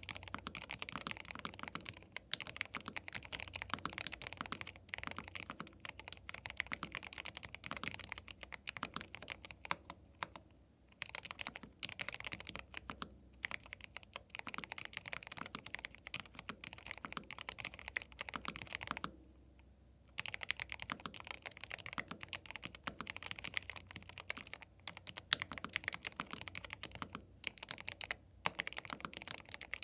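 Fast typing on a YUNZII B75 Pro gasket-mount 75% mechanical keyboard with Milk linear switches: a dense run of keystroke clacks, pausing briefly about ten seconds in and again just before twenty seconds.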